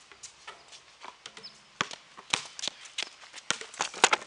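Basketballs bouncing on a concrete court in an irregular scatter of sharp thuds, with running footsteps; the loudest bounce comes about four seconds in.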